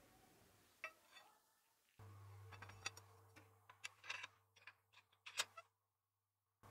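Faint scattered clicks and light knocks from a steel blade blank being handled at a bench vise, over a low steady hum; the sound cuts in and out abruptly.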